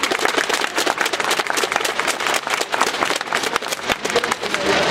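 Crowd noise in a large sports hall: many people clapping in quick, irregular claps, mixed with a murmur of voices.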